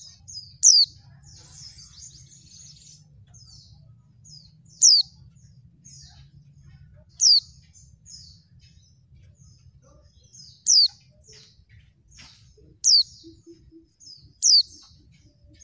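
Female pleci (white-eye) calling: six loud, sharp notes, each falling quickly in pitch, spaced a few seconds apart, with soft twittering between them. The female's call is used as a lure to set male white-eyes singing.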